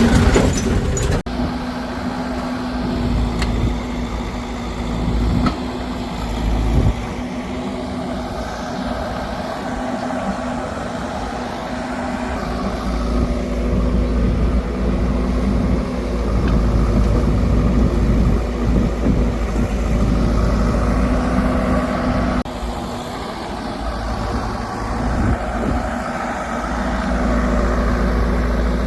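Heavy diesel farm machinery, a backhoe loader or tractors, running steadily with a constant low hum, with sudden shifts in the sound about a second in and again after about 22 seconds.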